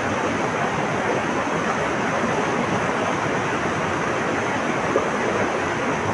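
Flowing water rushing steadily, with no break or change.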